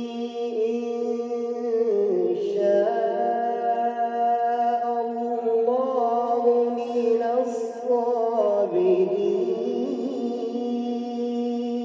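A man reciting the Quran in a drawn-out melodic chant, one long ornamented phrase with his voice held on sustained notes that bend through slow turns. The pitch climbs about two seconds in and sinks back near the end.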